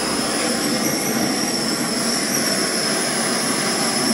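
Gas brazing torch flame burning with a steady hissing roar while it heats an aluminium air-conditioner pipe joint, with a thin high whine held over it.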